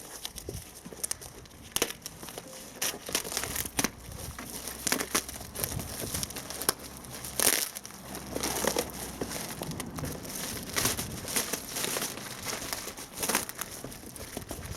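Packaging being handled and opened: continuous crinkling and rustling with sharp crackles and occasional tearing.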